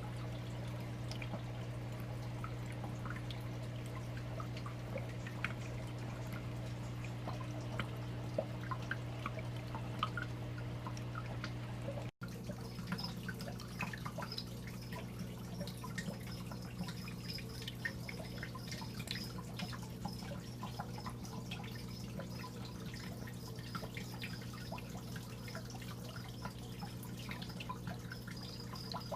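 Water dripping and trickling in a paludarium, over the steady low hum of its water pump. The sound drops out for a moment about twelve seconds in.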